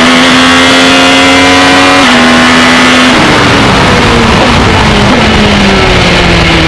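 GP2 race car's V8 engine heard on board, held at steady revs with a small dip about two seconds in. From about three seconds in the pitch falls in several steps as the car slows and changes down for a bend.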